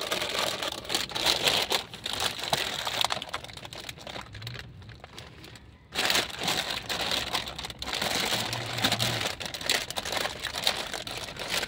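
Plastic sack lining crinkling and rustling as gloved hands sift through soil in it, in a dense, irregular run of crackles with a short pause about six seconds in.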